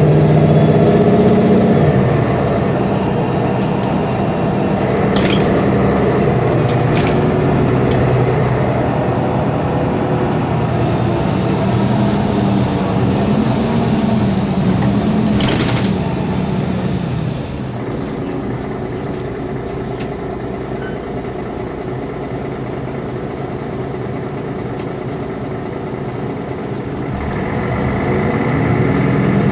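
Mercedes-Benz Conecto G articulated city bus with its OM457LA turbo-diesel engine running under way, the engine note rising and falling. A short burst of hiss comes about 15 seconds in, then the engine drops back to a quieter, lower note for about ten seconds before picking up again near the end.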